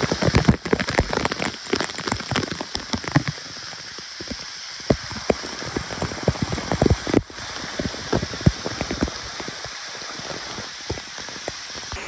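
Water falling in a heavy cascade, drops drumming on the phone and spattering on the pool's surface. It is heaviest for the first three seconds, then thins to a lighter patter with scattered heavier hits.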